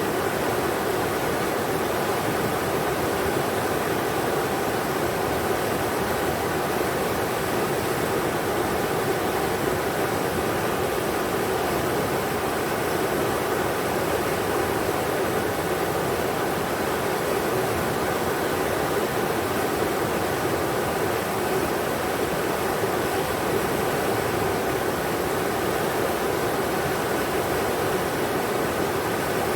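Englishman River rushing steadily over its bed, an even, unbroken hiss of flowing water.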